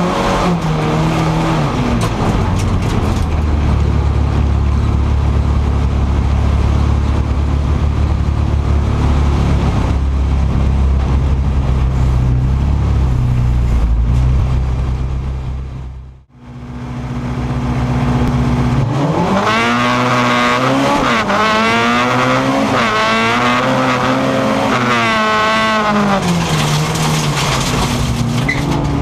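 Folkrace car's engine heard from inside the cabin. It runs with a steady low drone after its pitch drops at the start, fades out briefly at about the middle, then comes back revving up and easing off again and again with a rising and falling pitch.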